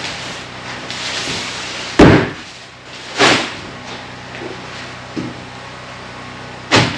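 Three sharp knocks of things being handled and set down on a bare wooden plank floor. The first, about two seconds in, is the loudest, and a rustle comes just before it.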